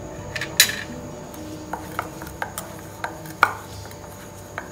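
Stainless steel kitchenware clinking and knocking about eight times, the loudest clink about half a second in: a small spoon set back on a steel plate, then the steel bowl knocking as mashed potato dough is kneaded in it by hand.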